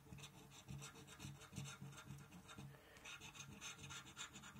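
Faint, quick repeated scratching strokes, about four a second, as the coating is scraped off a paper £5 Monopoly scratchcard.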